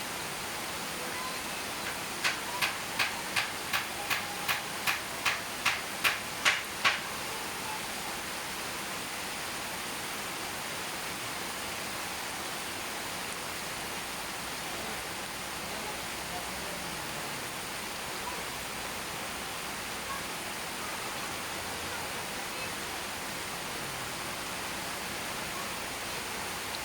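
Steady rain falling, a continuous even hiss. About two seconds in, a run of about fourteen sharp clicks, some three a second, grows louder and stops after about five seconds.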